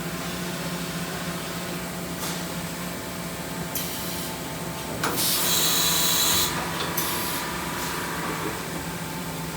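Makino F8 vertical machining center running: a steady hum with several short bursts of hiss. The loudest burst comes about five seconds in and lasts about a second and a half.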